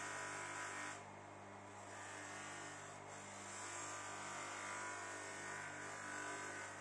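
Bench-mounted electric motor running steadily with a hum, driving a polishing wheel while a small metal part is held against it, adding a light hiss that swells and eases as the part is pressed and turned.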